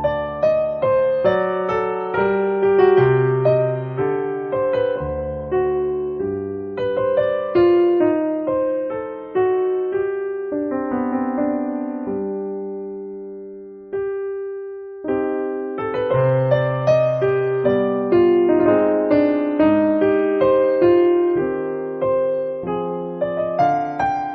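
Gentle background music played on piano-toned keyboard, with notes struck in slow chords. About two-thirds of the way through, a held note dies away before the playing starts again.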